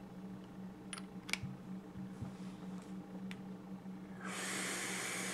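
A few light clicks as the small parts of a vape atomizer are handled, then, about four seconds in, a louder steady hiss, all over a low steady hum.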